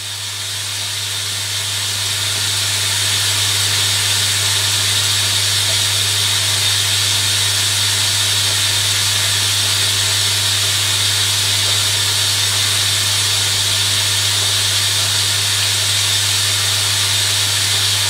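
Hoover Electronic A3172 front-loading washing machine filling with water: a steady hiss of water rushing in, with a steady low hum beneath, building over the first few seconds and then holding steady.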